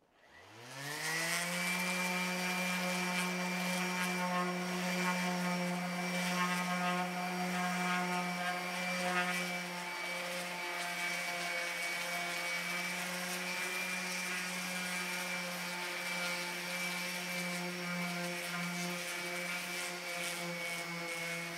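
Electric orbital sander starting up, its whine rising over the first second or so, then running steadily as it sands a plywood boat transom.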